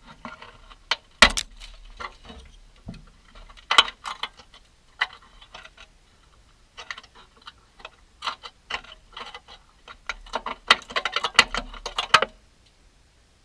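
Hand tool picking and prying at rusted sheet steel on the lower rear quarter of a 1970 VW bay-window bus, as the rotten section is worked out. Irregular metallic clicks, scrapes and clinks, with a dense run of clattering near the end that stops suddenly.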